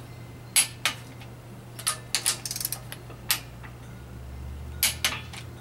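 Metal clinks of camshaft bearing caps being handled and set onto the D17A2 engine's cylinder head: several separate knocks, with a quick rattle of small ticks about two seconds in.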